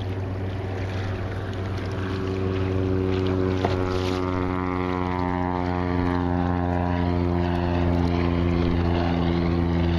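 Propeller engine of a passing seaplane, its pitch sliding slowly downward as it goes by, over a steady low engine drone.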